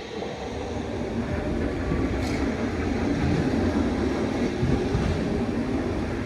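Red Appenzeller Bahnen narrow-gauge electric train rolling past on the rails, a rumbling run that grows louder over the first few seconds as it approaches, then holds steady.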